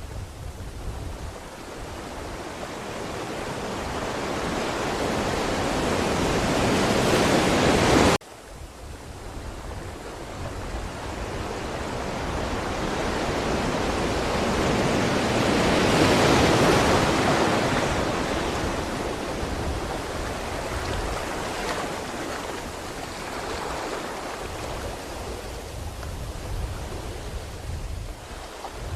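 Ocean surf: a wave's rush builds louder and cuts off suddenly about a third of the way in, then another wave swells to a peak around the middle and slowly washes back out.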